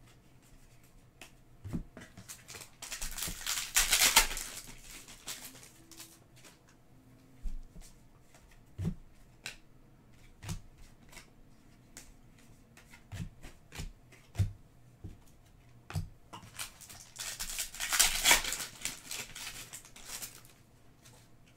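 Trading cards being flipped through by hand: cards sliding and flicking against one another with scattered light clicks, and two louder stretches of papery rustling, about three seconds in and again near eighteen seconds.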